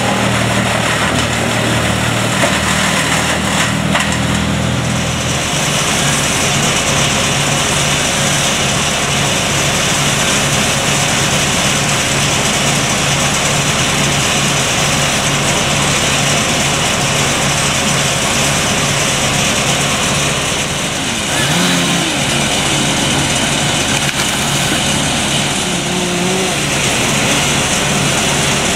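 Tree-clearing crew's power equipment running steadily. A lower engine note gives way about five seconds in to a steadier, higher running sound.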